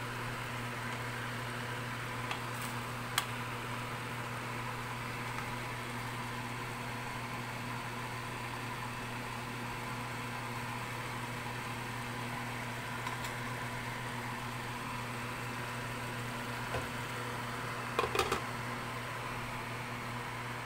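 A steady motor hum with a hiss, like a kitchen fan, runs throughout. There are two light clicks of the spatula on the stainless pan about two and three seconds in, and near the end a short cluster of clinks as the glass lid is set on the pan.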